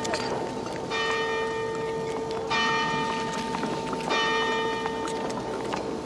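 A single large bell tolling slowly, struck three times about a second and a half apart, each stroke ringing on and fading into a steady hum. It rings at the pit gate as the miners' shift changes.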